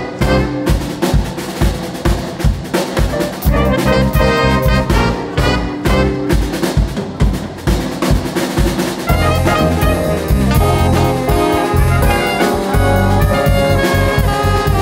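Live jazz band playing an overture: trombone and trumpets over a drum kit. Short punchy brass hits for the first half, then held chords from about nine seconds in.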